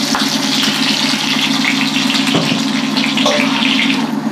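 Oil sizzling steadily in a steel kadai as chillies fry, over a steady low hum. There is one knock about halfway through, and the sizzle falls away near the end.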